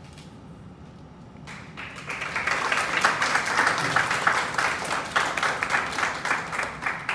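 Audience applauding: the clapping starts about a second and a half in, builds quickly and carries on steadily, dense and even.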